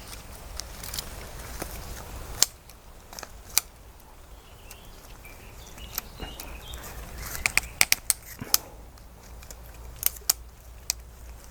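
Scattered sharp clicks and knocks from handling a garden pruner and branches, with a quick cluster of clicks about two thirds of the way through. Faint bird chirps sound in the background.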